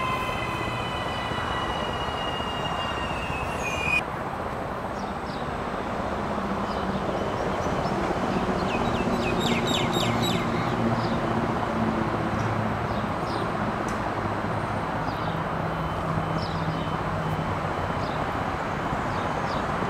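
Auckland AM class electric multiple unit braking into the station, its motor whine falling in pitch. About four seconds in the sound changes abruptly to a steady hum and rumble as the train stands at the platform with its onboard equipment running.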